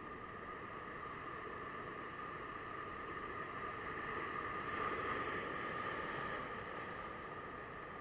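Sea swell surging and washing against a rock ledge: a steady rushing hiss that swells to its loudest about halfway through, then eases.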